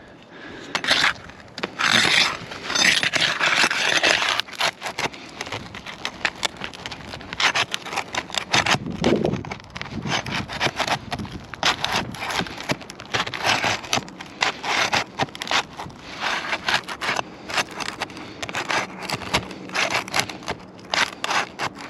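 Asphalt roof shingles being pried up and unsealed from the course below: a long run of irregular scrapes and short clicks, with a longer stretch of scraping in the first few seconds.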